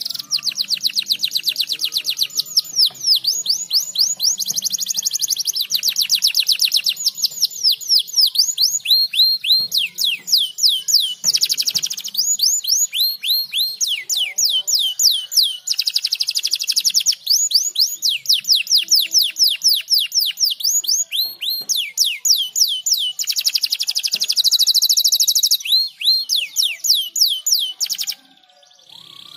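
Domestic canary singing in long, rapid trills of short downward-sweeping notes, many per second, the trills changing speed and pitch from phrase to phrase. The song breaks off about a second before the end.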